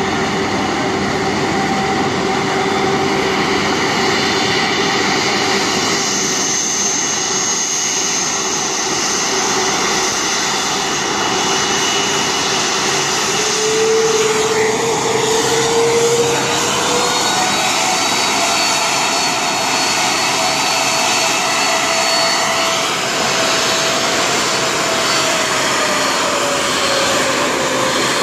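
An Airbus A330's twin jet engines whine at taxi power as the airliner rolls past. Several steady tones run through the whine: one rises in pitch about halfway through, and another slowly falls towards the end.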